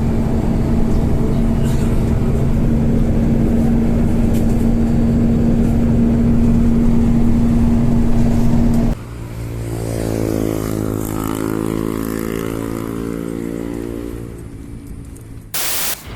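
Motor vehicle engine sounds: a steady engine drone with a constant hum, cutting abruptly about nine seconds in to an engine whose pitch bends down and back up, with a short loud burst of noise near the end.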